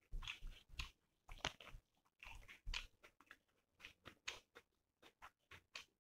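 Close-up chewing and mouth sounds of a person eating chicken curry with rice: short, irregular smacks and clicks.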